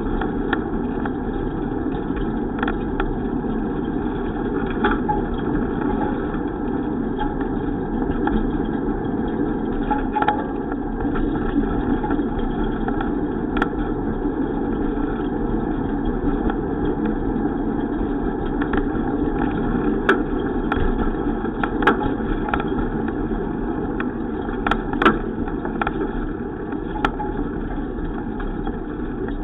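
Steady rumbling noise of a bicycle ride on the road, with scattered sharp clicks and knocks, more of them in the second half.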